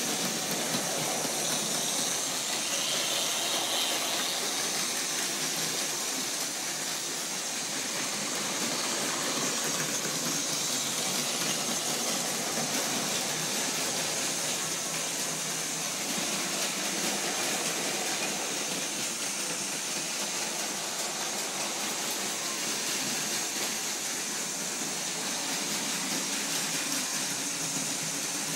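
Several battery-powered Plarail toy trains running at once, their small motors and gearboxes whirring and their wheels rattling on plastic track as one steady, even hiss.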